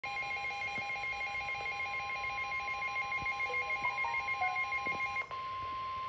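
Midland WR-300 NOAA weather radio sounding its alert for a severe thunderstorm warning: rapid alternating electronic beeps over a steady tone, the NOAA Weather Radio 1050 Hz warning alarm tone. About five seconds in the beeping stops and the steady tone carries on alone.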